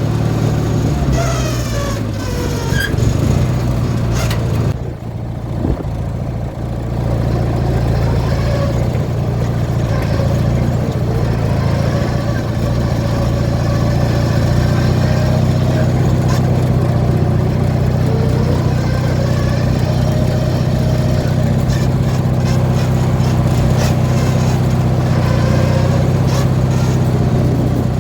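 18-horsepower Briggs & Stratton twin-cylinder engine of a modified Craftsman riding mower running, its pitch sliding up and down in the first few seconds and dipping briefly about five seconds in, then holding a steady speed.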